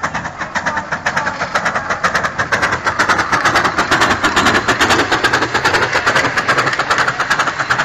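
Miniature ride-on steam locomotive passing close by under way, chuffing in quick, regular beats. The beats grow loudest about three to six seconds in and ease off slightly near the end.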